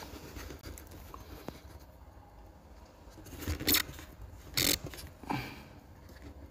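Handling noise: a few short scrapes and rustles, three louder ones in the second half, over a faint low hum.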